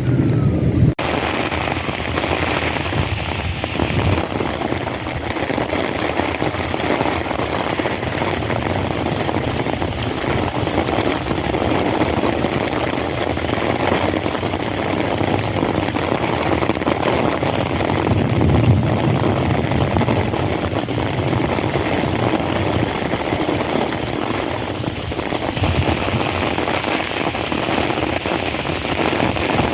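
Heavy rain falling steadily, a dense even hiss of drops on surfaces; the sound changes abruptly about a second in.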